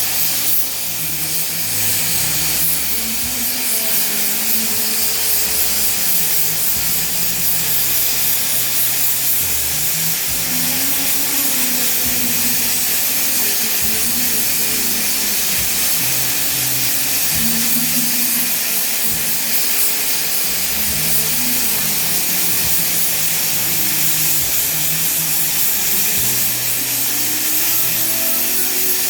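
A steady hiss, typical of a gas torch flame used to weld quartz, with background music playing over it.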